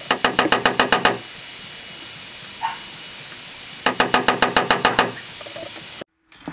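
Claw hammer tapping a nail held against a 2019 Dodge Charger's trunk lid in two quick runs of about ten light, rapid taps, one at the start and one about four seconds in. The nail is marking the spot for a spoiler mounting hole before drilling.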